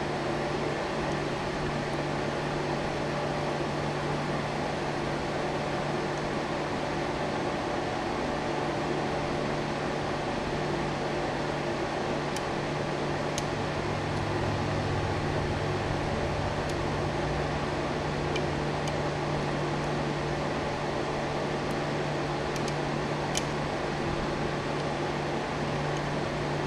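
Steady fan-like hum and hiss with a constant low tone, and a few faint clicks of metal picking tools working the pins of a pin-tumbler lock, in two small clusters midway and near the end.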